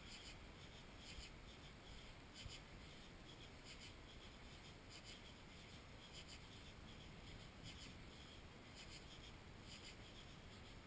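Near silence, muffled by a GoPro's waterproof case, with faint irregular scratchy ticks scattered throughout.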